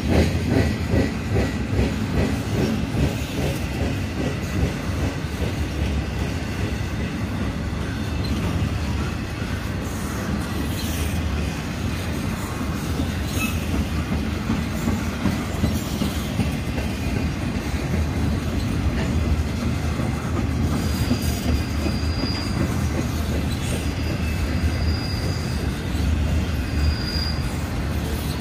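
Long Union Pacific freight train of empty intermodal flatcars rolling past: a steady low rumble of wheels on rail, with rhythmic clickety-clack of wheels over rail joints at the start. Three short high wheel squeals come near the end.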